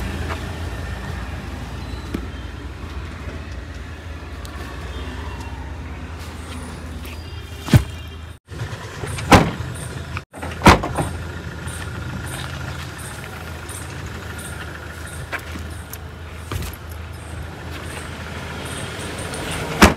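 A motor vehicle's engine running steadily with a low rumble. Three loud, sharp knocks come in the middle, and the sound cuts out briefly twice.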